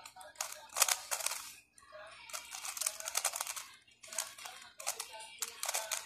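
GAN 354 M magnetic 3x3 speedcube being turned fast during a timed solve: runs of quick plastic clicks and clacks as the layers snap round. There are short breaks between runs, about two and four seconds in.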